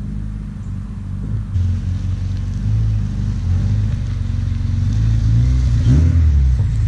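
Honda Civic Si's K20 four-cylinder engine running with its muffler off, a deep steady drone whose pitch rises and falls briefly with the throttle about six seconds in.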